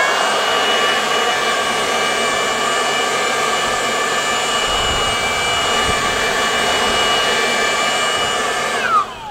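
Milwaukee M18 cordless electric leaf blower running at full speed: a steady whine over the rush of air. It jumps up in pitch at the start and begins to wind down near the end.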